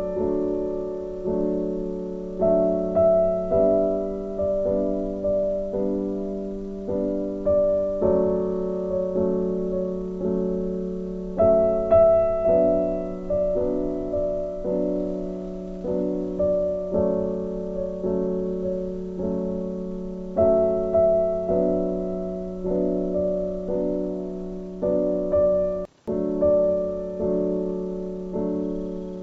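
Background music: a gentle piano piece of struck, fading notes over held chords, with a brief dropout near the end.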